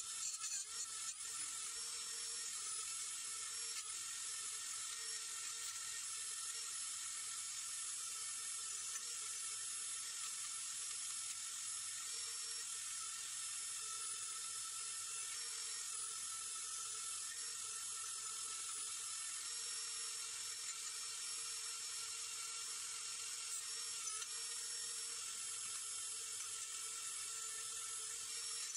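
Small high-speed rotary tool running steadily with an even high whine, cleaning rust off a tubular metal luggage rack.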